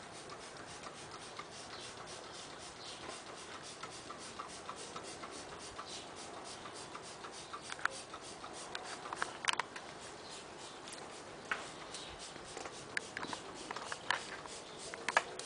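A handheld trigger spray bottle being worked over garden shrubs: scattered small clicks and a few short spritzes, the clearest about nine and a half seconds in.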